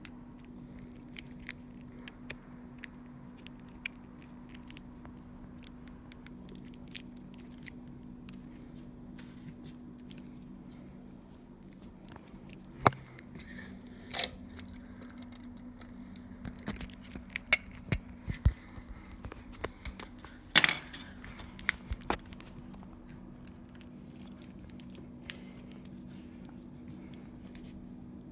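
Close-up handling noise: scattered small clicks, taps and scrapes, sparse at first and thickest through the middle, with a few sharper knocks. A steady low hum runs underneath.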